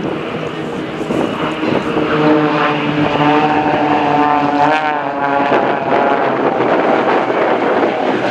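Extra 300 aerobatic propeller planes flying past in formation, their piston engines droning together. The pitch bends about five seconds in and then settles on a new note.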